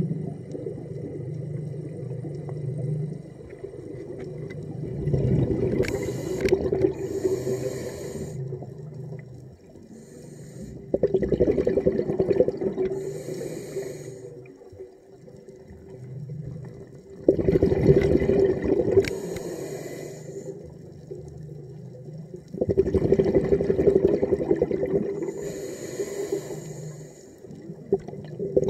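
A scuba diver breathing through a regulator underwater: four loud exhalations about six seconds apart, each a gush of bubbles lasting a few seconds, with quieter inhalations between. A steady hum runs underneath.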